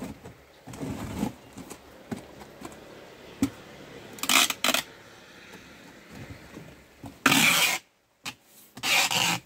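Packing tape being pulled off a handheld tape dispenser onto a cardboard box, a harsh ripping screech: two short rips about four seconds in, then two longer, louder rips near the end, with light rustling of the cardboard between.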